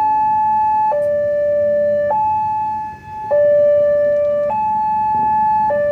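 Railway level-crossing warning siren sounding a two-tone hi-lo alarm, switching between a higher and a lower tone about every 1.2 seconds.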